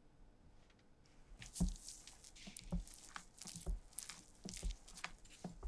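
Silicone spatula folding thick whipped egg batter in a glass bowl: wet squishing strokes with a soft thud about once a second, starting about a second and a half in.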